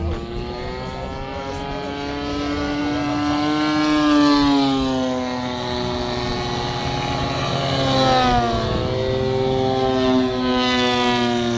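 Several propeller-driven radio-controlled model airplanes flying past together, their engines droning at slightly different pitches. The sound swells and drops in pitch as they pass, about four seconds in and again about eight seconds in.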